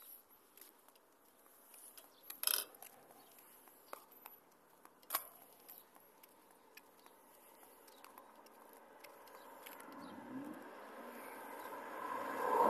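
Traxxas Bandit RC car approaching on a high-speed pass: a faint rush that swells steadily over the last few seconds. Two sharp clicks come earlier, over quiet background.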